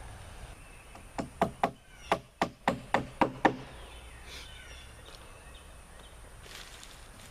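A hammer driving nails with about nine quick blows, roughly four a second, tacking plastic sheeting down onto a plywood deck.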